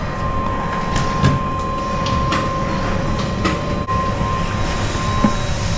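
A Rhaetian Railway electric train standing at the platform with its doors open: a steady hum and a constant whine from its onboard equipment. A few short knocks and clicks, from footsteps and bags, come as passengers board.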